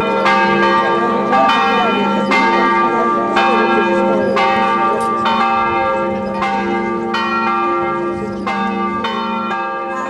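Church bells ringing: strikes of different pitches about once a second, each ringing on over a steady low hum from earlier strikes.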